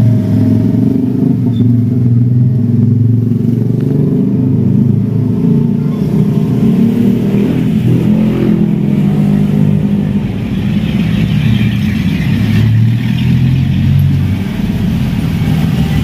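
Engines of cars and motorcycles in a queue close by, running at low revs and pulling away with some revving partway through.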